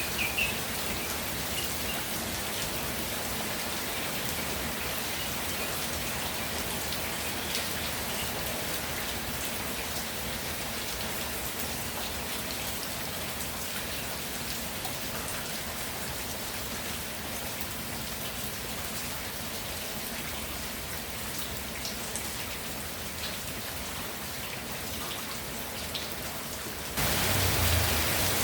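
Steady rain falling, with scattered louder drips standing out from the patter. Near the end it abruptly turns louder and heavier.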